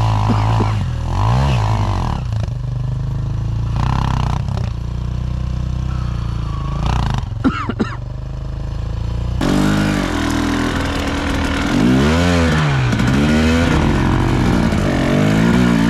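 Enduro motorcycle engines: a steady idle with a few short revs, and a sharp knock about seven and a half seconds in. Then, after a cut, a KTM enduro bike's engine revs up and down repeatedly as it is ridden.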